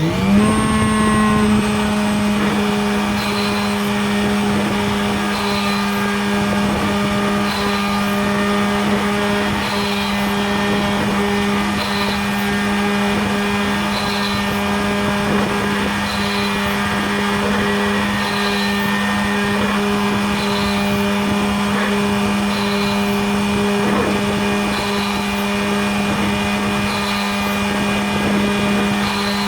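Homemade Arduino-controlled CNC machine running: a motor spins up at the start and settles into a steady hum. A short high blip repeats about every one and a half seconds.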